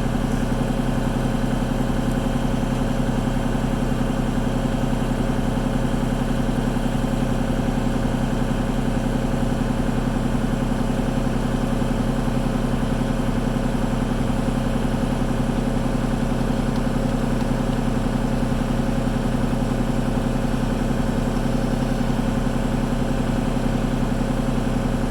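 Diesel engine of a piece of heavy equipment idling steadily, with an even, unchanging hum.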